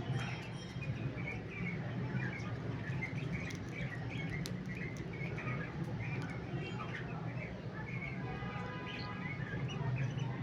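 Cockatiels chirping in short, frequent calls over a steady low hum, with a few faint clicks.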